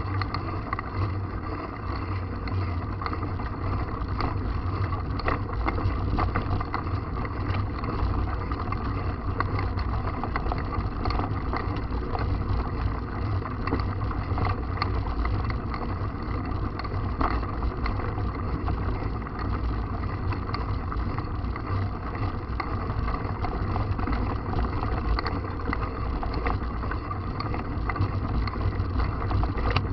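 Wind buffeting the camera microphone on a moving mountain bike, a steady low rumble, with constant small rattles and clicks from the bike running over a rough trail.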